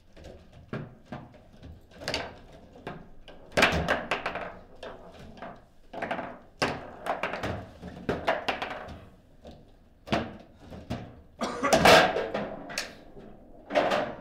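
Foosball table in play: irregular sharp knocks and clacks as the plastic player figures strike the ball and the rods knock against the table. The hardest hits come about four seconds in and near twelve seconds.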